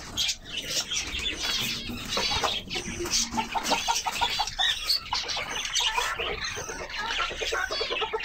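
Caged birds in an aviary, cockatiels among them, chirping and whistling throughout. From about three seconds in, a chicken clucks in a rapid run.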